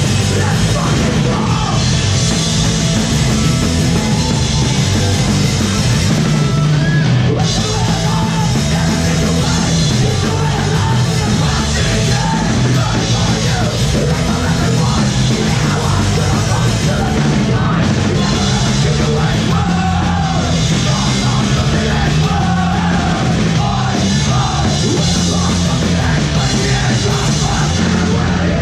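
Punk rock band playing live at full volume: electric guitar, bass and drum kit, with a singer yelling the vocals.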